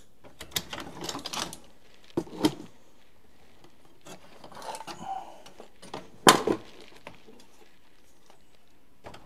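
Old metal car parts clattering and knocking against each other and a plastic crate as the crate is rummaged through. The knocks come in scattered clusters, the loudest a sharp knock a little past six seconds.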